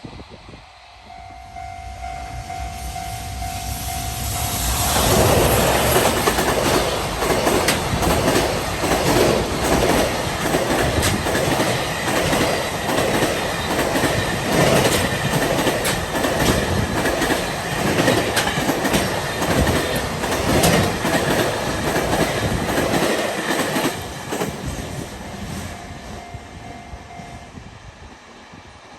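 A JR Freight train behind an electric locomotive passes at speed. The clatter of its wheels over the rail joints builds about four seconds in, stays loud and rhythmic for some twenty seconds, then fades near the end. A level-crossing warning bell rings steadily under it.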